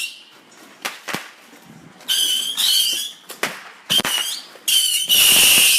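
Fireworks going off: a few sharp pops and short high whistles. About five seconds in, a louder, longer whistling hiss begins.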